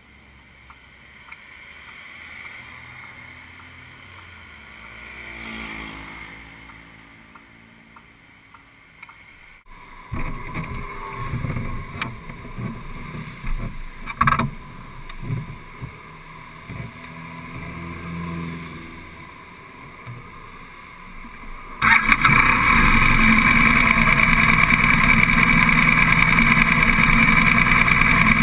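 A vehicle passing faintly, then knocks and clicks of handling right at the camera on the motorcycle. About three quarters of the way through, the BMW F800S's parallel-twin engine starts abruptly and runs steady and loud at standstill.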